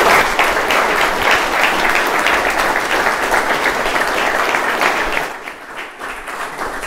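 Audience applauding, steady at first, then thinning out and dying down about five seconds in.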